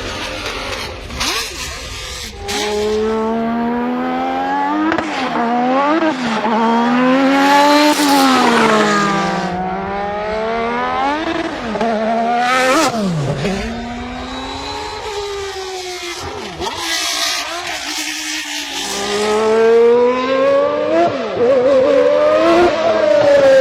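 Honda Formula 1 engine at high revs, its pitch climbing and falling repeatedly as the car accelerates and slows through the gears.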